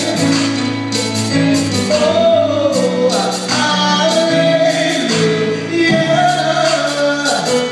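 Gospel vocal group singing live in harmony, several voices holding long notes together, over a band whose percussion keeps a steady beat.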